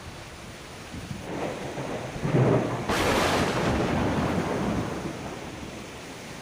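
A thunderclap: a deep rumble builds, breaks into a sharp crack about three seconds in, then rolls away over a couple of seconds. A steady wind and rain hiss lies underneath.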